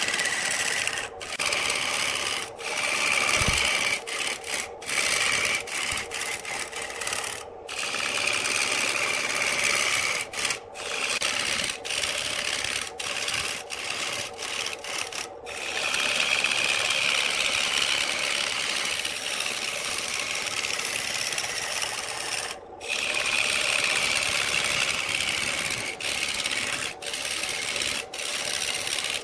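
Turning tool cutting into a large spinning wooden blank on a wood lathe: a steady rasping hiss of shavings peeling off, broken again and again by brief gaps as the tool lifts away.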